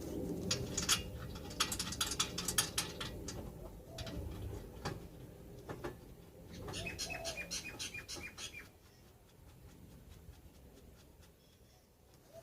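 Ratchet wrench clicking rapidly in two runs as the rear brake caliper bolts are wound back in. A dove coos a few times in the background.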